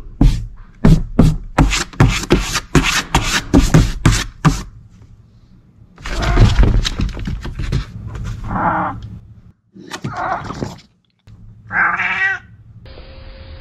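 A domestic cat scuffling in a cardboard box. First comes a fast run of sharp, regular strokes, about three a second, for the first four seconds or so. Then a loud burst of rustling, then three short meows spaced about a second and a half apart.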